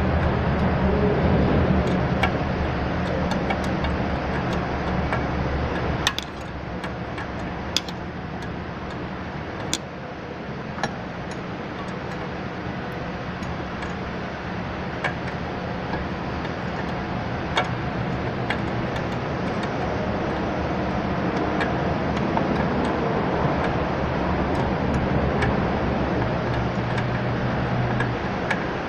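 An engine or motor running with a steady low hum, with a few sharp metallic clicks and taps as a wrench works the brake master cylinder's line fittings.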